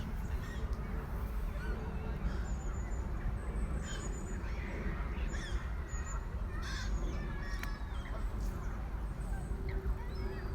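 Waterfowl honking and calling in scattered short calls over a steady low rumble.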